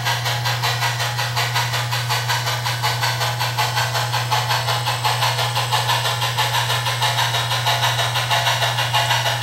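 Soundtraxx sound decoder in an HO-scale L&N 2-8-4 steam locomotive model playing steam exhaust chuffs through the model's small speaker, a steady rhythm of about four a second, over a constant low hum.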